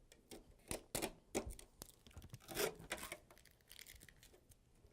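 Packing materials being pulled off a new printer: irregular tearing and crinkling, with short sharp crackles.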